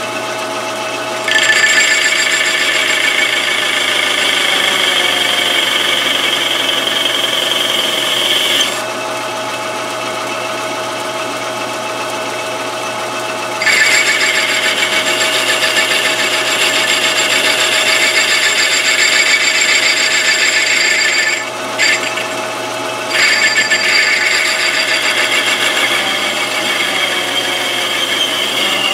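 Metal lathe running, with a boring bar cutting a shallow recess in a spinning steel plate. A steady motor-and-gear hum goes on throughout, and a bright, ringing cutting sound rides over it in three stretches: the first starts about a second in, then come a pause of about five seconds and a shorter break of about a second and a half.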